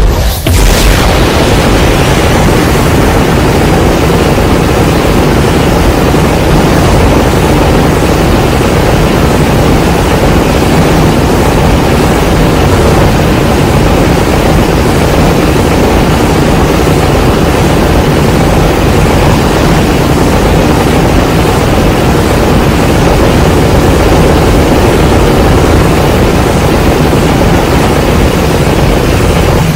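A loud, steady rush of rumbling noise from a Godzilla film sound effect, starting abruptly and holding unchanged, with no clear pitch.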